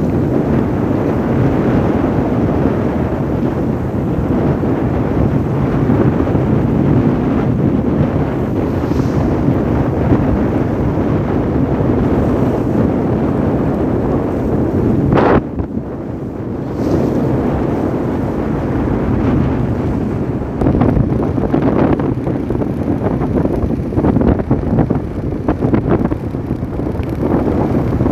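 Strong wind buffeting the microphone, with a tugboat's engine running underneath. A sharp click about halfway through, after which the wind noise briefly drops.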